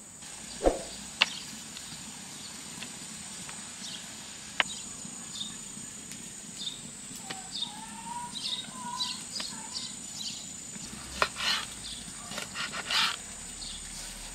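Outdoor rural ambience: a steady high insect drone, with short bird chirps that grow busier in the second half. A few sharp knocks come near the start and again about eleven seconds in.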